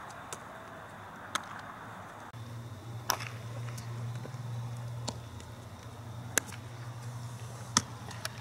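Sharp, separate knocks of baseballs being hit and caught during infield ground-ball work, about half a dozen spread over several seconds. A steady low hum comes in about two seconds in.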